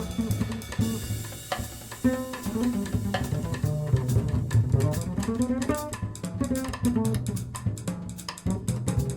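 Instrumental music with a prominent double-bass line over percussion.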